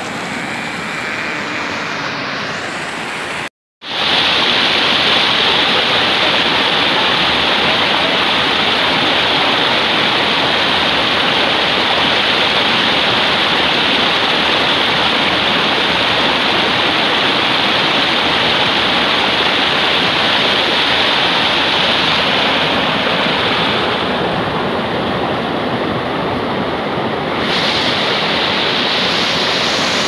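Water rushing steadily over a rocky waterfall, a loud, even hiss. It cuts out for a moment about three and a half seconds in and comes back louder.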